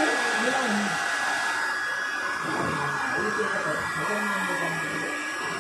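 Handheld electric hair dryer blowing steadily, a rush of air with a thin high whine running through it.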